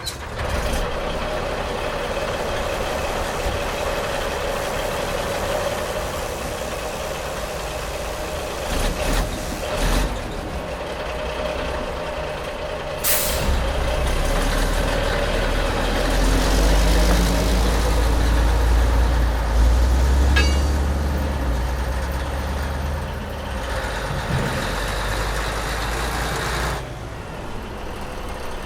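Heavy mining machinery running continuously with a steady drone, a short sharp hiss about halfway through, then a deep low rumble that builds for several seconds before easing off near the end.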